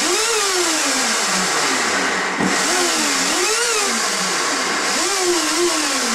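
A small motor running with a loud, steady rushing hiss, its pitch sliding up and back down three times.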